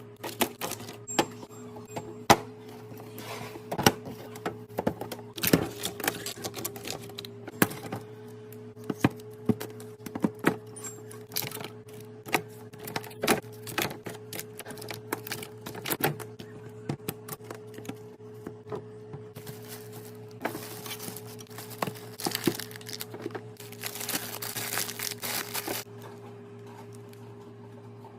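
Restocking of snacks and drinks: packages and containers set down and arranged with frequent sharp clicks and knocks, and plastic wrappers rustling around the two-thirds mark. A steady low hum runs underneath.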